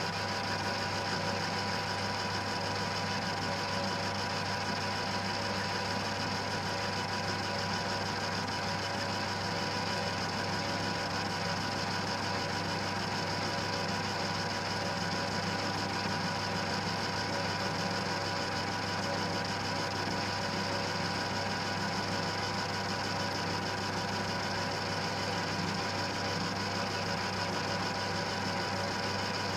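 1940s Colchester lathe running steadily, its spindle turning in oiled bronze bushings: a constant mechanical hum with several steady tones.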